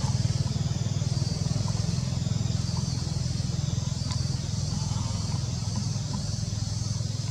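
A small engine running steadily, a low pulsing hum, with a steady high hiss above it.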